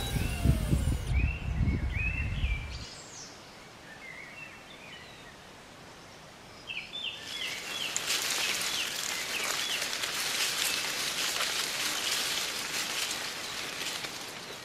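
Open-field ambience: wind buffeting the microphone for the first few seconds, small birds chirping, and from about halfway a steady rustling hiss of wind through tall grass.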